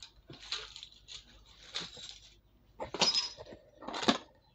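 Metal hand tools clattering and scraping as someone rummages through them for a pair of pliers, in a few short bursts.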